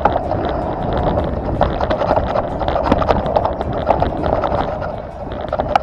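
Off-road vehicle driving over a rough trail: engine and tyre noise with frequent knocks and rattles, the sharpest knocks near the end.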